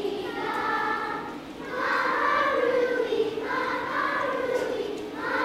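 A choir of second- and third-grade children singing together, in about four sung phrases with short breaths between them.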